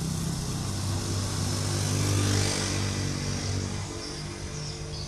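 Diesel-electric locomotive engine running with a steady deep drone that slowly fades away in the second half.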